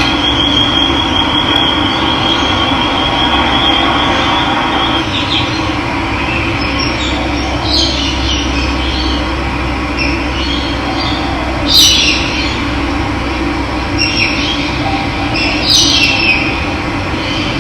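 Running water, a steady rush, with birds calling over it. A thin high trilling note holds for the first few seconds, then short falling calls come every few seconds.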